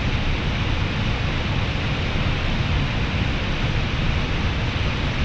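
Steady rushing noise outdoors with a flickering low rumble underneath, even throughout with no distinct events.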